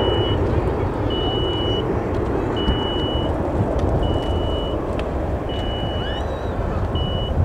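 A vehicle's reversing alarm beeping: one steady high tone about every second and a half, six or seven times, over a constant low engine rumble.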